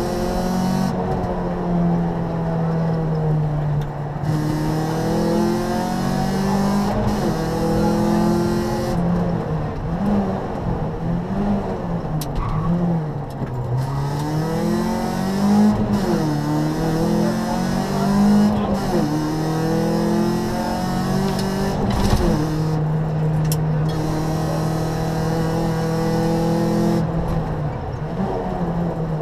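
Rally car engine heard from inside the cabin at stage pace, revving up and dropping back again and again through gear changes and braking, over tyre and road noise. A few sharp knocks come through late on.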